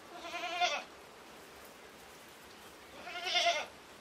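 Goat kid bleating twice: two short, high, quavering calls, each under a second long and about three seconds apart.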